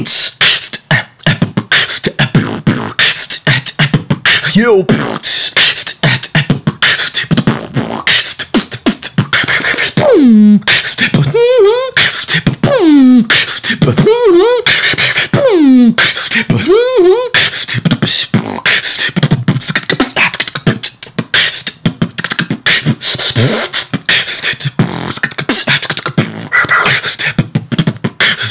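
Solo beatbox freestyle: fast mouth-made drum sounds, kicks, snares and hi-hat clicks, keeping a dense beat. In the middle, a run of swooping, falling pitched vocal notes rides over the beat.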